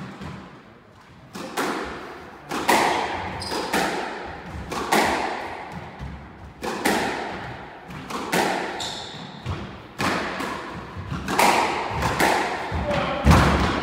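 Squash rally: the rubber ball cracks off racket strings and the court walls about every one to two seconds, each hit echoing in the enclosed court, with a few short high squeaks between hits and a heavier low thump near the end.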